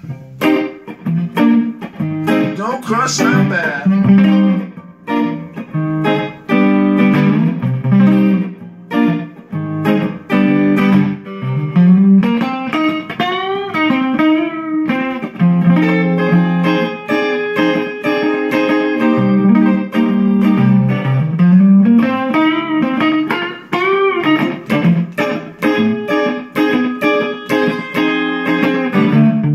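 Sunburst Stratocaster-style electric guitar played through an amplifier, picking a busy lead line with several bent notes.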